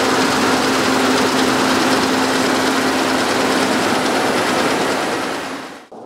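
Claas Lexion 670 TT combine harvester running while threshing wheat: a loud, even machine rush with a steady hum, fading out near the end.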